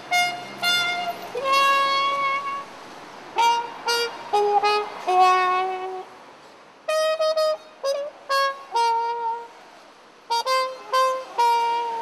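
A horn-like wind instrument, brass or saxophone, plays a tune in short phrases. It mixes quick short notes with notes held for about a second, and pauses between the phrases.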